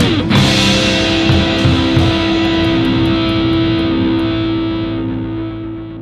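Rock band of electric guitars and drums hits a chord about a quarter-second in and lets it ring, the cymbals trailing off as the sound fades out toward the end.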